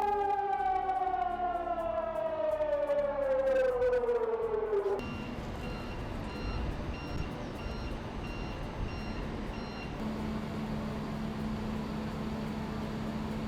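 Air-raid warning siren of a civil-defence drill, a loud wail that falls steadily in pitch as it winds down and then cuts off suddenly about five seconds in. Quieter street noise follows, with a short high beep repeating a little faster than once a second, and then a steady low hum.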